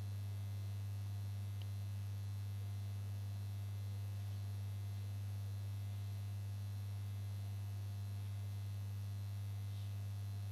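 Steady low electrical mains hum with no change in pitch or level.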